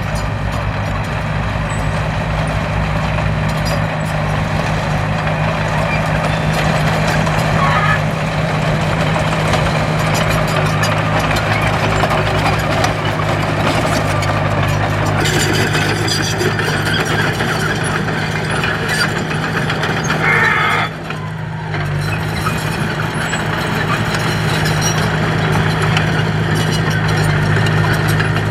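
Heavy construction machine's diesel engine running steadily under work, with a low, even hum and a brief dip about three-quarters of the way through.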